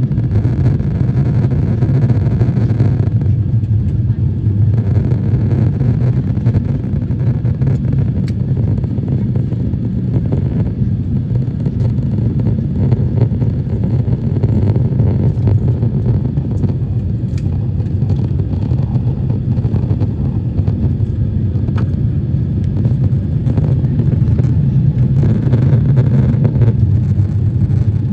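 Airbus A350-900 with Rolls-Royce Trent XWB engines, heard inside the passenger cabin: a steady, loud low rumble of engine and airflow noise.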